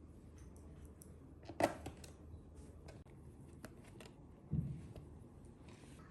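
Small clicks and taps of laptop parts and tools being handled during a RAM and SSD upgrade, with a sharp click about one and a half seconds in and a dull knock about four and a half seconds in.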